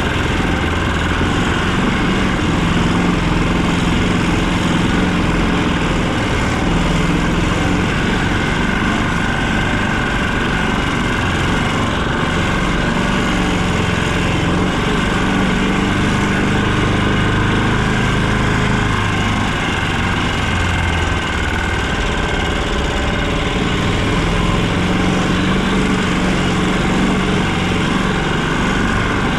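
A vehicle engine running steadily as it drives, its note rising and falling slightly now and then.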